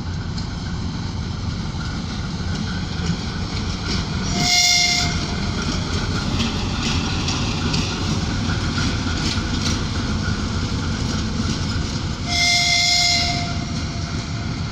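ChME3 shunting diesel locomotive with its engine running steadily, sounding two horn blasts of about a second each, one about four and a half seconds in and one about twelve and a half seconds in.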